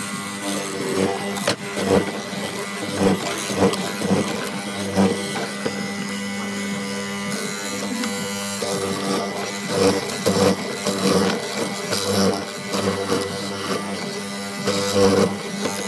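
Benchtop hollow-chisel mortiser running with a steady motor hum while its square chisel and auger bit plunge again and again into a pine board, each plunge a short crunching cut.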